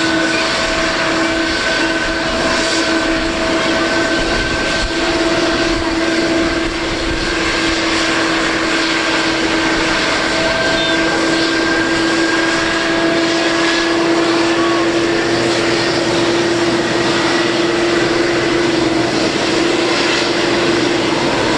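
Boeing 777-300 jet engines running: a steady, loud rush of noise with several whining tones, the highest one slowly rising in pitch.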